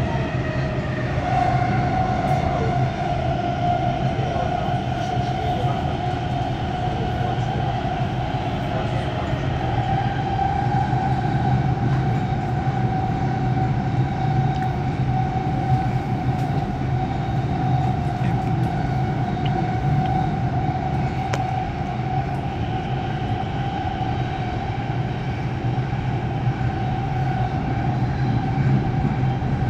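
Dubai Metro electric train running between stations, heard from inside the carriage: a steady rumble with a constant whine running through it.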